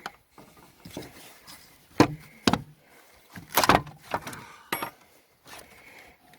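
Irregular knocks and clicks of plastic parts and tools being handled as the housing of a Mighty Mule gate opener is worked apart, with the loudest knocks about two seconds in and again near the middle.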